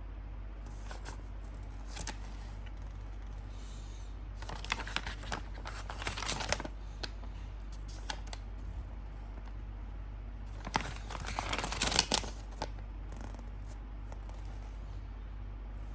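Unboxing handling noises: packaging rustling and crinkling with small clicks and knocks, in two busier spells about five and eleven seconds in, over a steady low hum.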